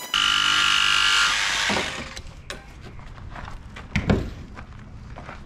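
Cordless power saw cutting through a hull planking strip: a loud, high buzz for about a second and a half that dies away. Scattered light knocks follow, with a sharp thump about four seconds in.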